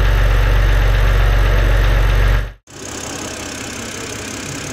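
BMW 130i's straight-six engine idling with a pronounced knocking clatter, typical of a worn variable camshaft timing unit. After a cut a little over two and a half seconds in, the same engine idles much more quietly, after an oil flush and an anti-wear Teflon additive treatment.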